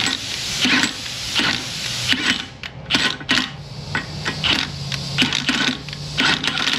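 Cordless impact wrench driving a thread-chasing die on a damaged axle's threads, run in short trigger bursts about once or twice a second as the die is worked in and out to clean the threads.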